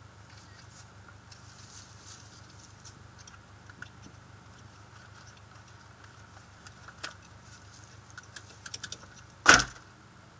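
Rally car's engine idling low and steady, with small clicks and rustling that come more often in the second half, and one sharp loud knock about nine and a half seconds in.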